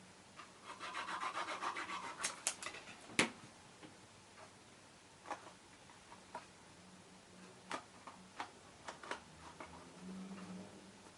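Card stock being handled and rubbed down by hand: a rapid rubbing rustle starting about a second in and lasting about a second and a half, then a sharp tap about three seconds in, followed by scattered light clicks of the card being pressed and moved.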